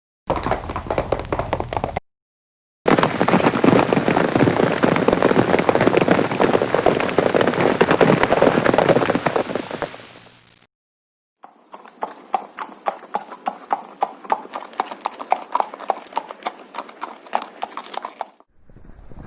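Horse hoofbeats at a run, in separate takes with short silent breaks between them. First a brief burst, then a long stretch of dense, rapid hoofbeats that fades out, then a run of clearer, evenly repeating hoof strikes.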